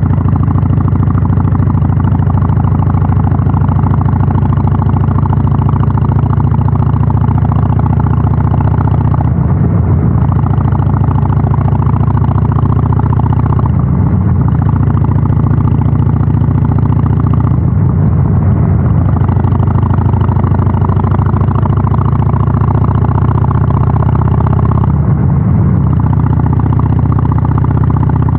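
Harley-Davidson Sportster 883's air-cooled V-twin running under way through a North American-spec muffler, a loud, steady low exhaust note. Its pitch shifts briefly about four times.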